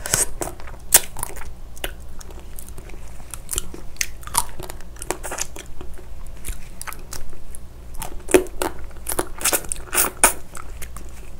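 Close-miked eating of spicy marinated raw crab: biting, crunching and wet chewing on sauced crab pieces, a steady run of many short crackly crunches with a few louder bites.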